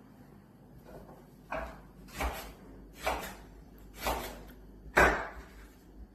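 Five short scraping or rustling handling noises, about a second apart, the last one the loudest.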